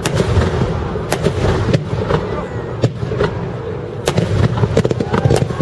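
Large aerial firework shells bursting in quick succession: a continuous low rumble of booms with sharp cracks standing out about once a second.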